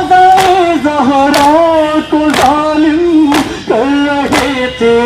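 Male voices chanting a nauha, a Shia mourning lament, over a loudspeaker. The crowd beats their chests in unison (matam), about one sharp beat a second.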